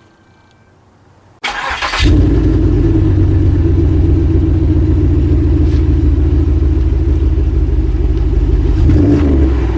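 A 5.3-litre LS4 V8 with a Flowmaster exhaust cranks and fires about a second and a half in, then settles into a steady, loud, deep idle, with a brief rise near the end.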